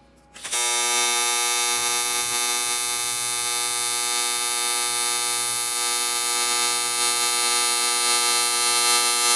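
AC TIG welding arc on aluminium with 4043 filler at 140 amps, striking about half a second in and then buzzing steadily with a strong high hiss.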